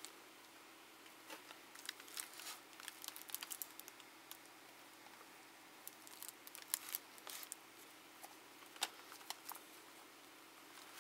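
Baseball trading cards being shuffled through the hands, card stock sliding and flicking against card stock in a few short bursts of light clicks.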